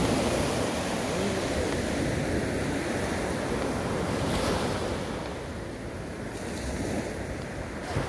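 Sea waves breaking and washing up the beach in a steady surging rush that swells and eases, with wind on the microphone.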